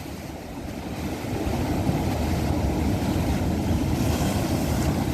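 Wind blowing over the microphone with sea surf behind it, a steady rough rush that swells over the first couple of seconds and then holds.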